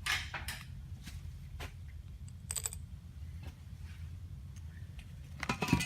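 Scattered light clicks and taps of small metal carburetor parts and hand tools being handled, with a cluster of louder clicks near the end, over a steady low hum.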